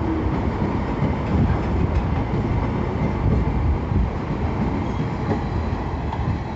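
Freight train hopper wagons rolling past close by: a steady rumble of steel wheels on the rails, with a few knocks as the wheels clatter over the track.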